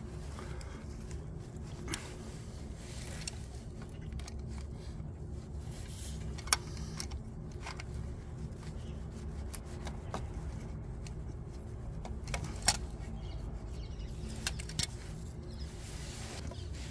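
Hand tools clinking against metal while a wrench is worked on the fittings of a motorcycle oil pump: several sharp clinks at uneven intervals, two of them louder, over a steady low hum.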